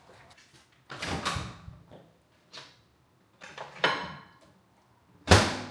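Built-in microwave being loaded: a few short rustles and knocks as the door is opened and the parchment-wrapped taco is put inside, then the door is shut with a sharp clunk near the end, the loudest sound.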